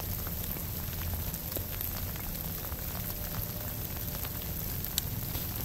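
Steady rain pattering, with scattered small drop ticks over a low rumble.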